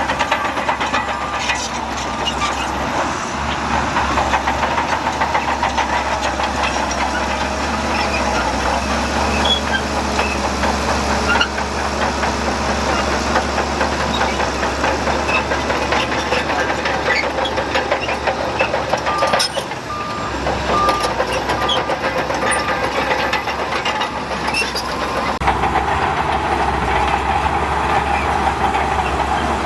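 Heavy diesel engines of earthmoving machinery running steadily under load. A reversing alarm beeps briefly near the start and again about two-thirds through.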